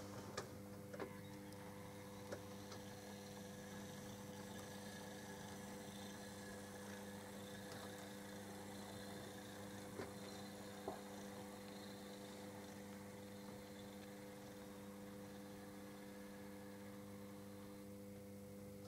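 Faint, steady electrical mains hum, a low buzz with overtones, with a few light clicks scattered through it.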